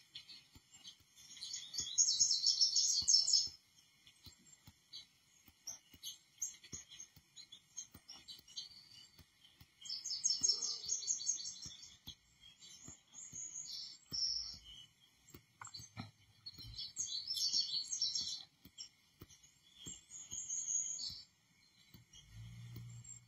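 Small songbirds chirping and trilling in short high-pitched bursts, several times, played from a bird video through small desktop computer speakers.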